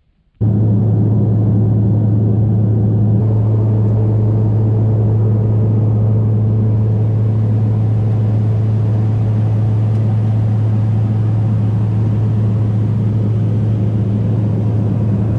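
A steady, low engine drone that starts abruptly about half a second in and holds an unchanging pitch and level.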